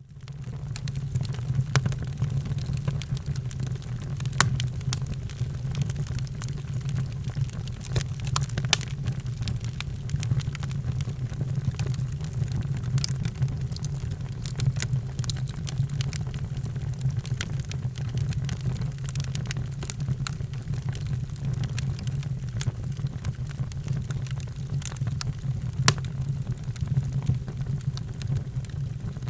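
Wood fire in a fireplace crackling: a steady low roar with irregular sharp pops and snaps scattered throughout, a few louder than the rest. The sound fades in quickly at the start.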